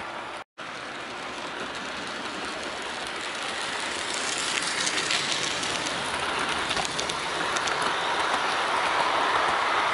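Model trains running around the layout: a steady whir of wheels on the track and small motors. It grows louder as a large On30 coach passes close near the end, with a few light clicks in the middle. The sound drops out completely for a moment about half a second in.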